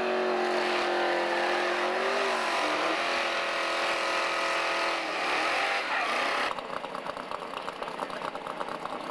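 A second-generation Pontiac Firebird drag car's engine held at high revs while its rear tyre spins and smokes in a burnout, the note dropping about five seconds in. After a sudden cut, another drag car's engine idles with a rapid, regular pulse.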